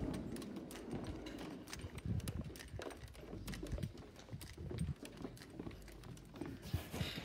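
Footsteps walking quickly, a sharp click with each step, about two or three steps a second.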